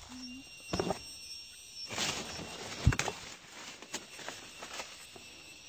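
Avocado leaves and stems rustling and brushing close by, with scattered light clicks and one sharp knock about three seconds in. A faint steady insect trill runs underneath.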